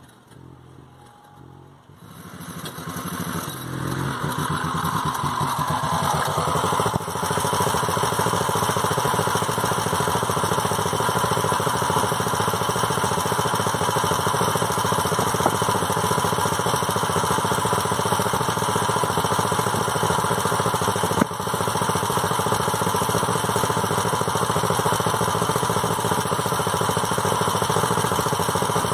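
Two-wheel walking tractor's engine running: it grows louder over the first few seconds, then runs steadily.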